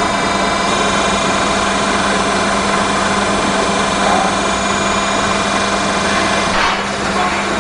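Multi-blade rip saw machine running steadily: an even, loud mechanical noise with steady humming tones.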